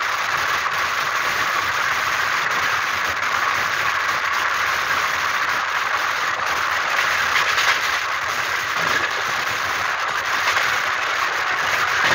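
Running noise of a moving passenger train heard from beside the coach: a steady rush of wheels on rails with a few faint irregular clicks.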